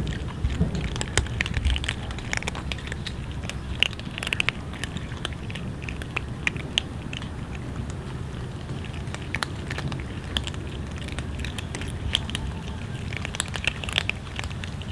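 A group of cats eating, with many small irregular chewing and crunching clicks overlapping one another.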